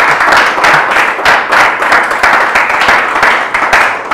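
Applause: a group of hands clapping steadily, the claps coming about three times a second.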